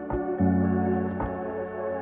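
Background music: slow, sustained chords with a light beat about once a second, the chord changing about half a second in.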